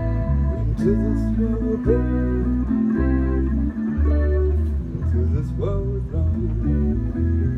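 Live band playing an instrumental stretch: guitar lines over a steady bass line, with drum hits here and there.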